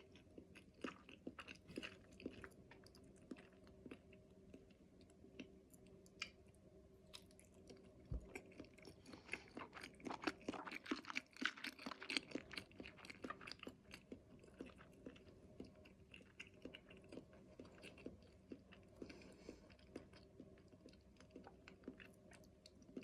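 A person chewing soft-boiled seasoned eggs (gamdongran), faint close-up mouth sounds with many small wet clicks. The eating is busiest midway through.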